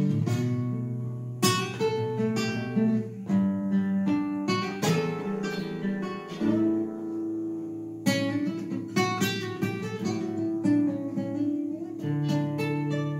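Solo acoustic guitar playing the song's instrumental ending: a run of picked and strummed chords, closing on a chord left to ring about a second before the end.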